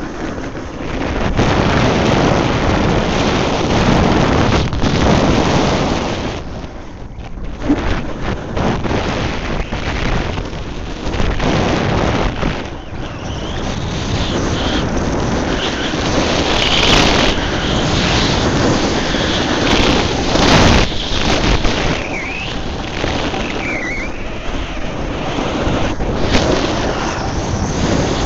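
Wind rushing over the microphone while riding a snowboard down a groomed piste, with the board's edge scraping and hissing over hard-packed snow. A few short squeals dip in pitch in the second half.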